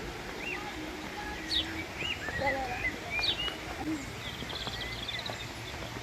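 Forest birds calling: scattered sharp chirps and short whistled notes from several birds, with a rapid trill near the end.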